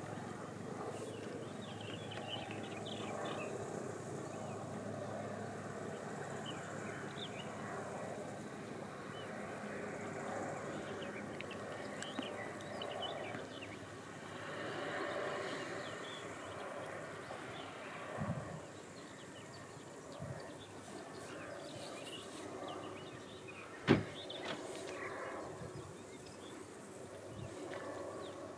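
Outdoor ambience: a steady low rumble with faint chirps scattered through it, a few dull thumps about eighteen seconds in and a single sharp click about twenty-four seconds in.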